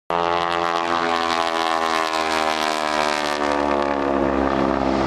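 Propeller airplane flying past with its engine at steady power, the engine note sliding slowly down in pitch as it passes.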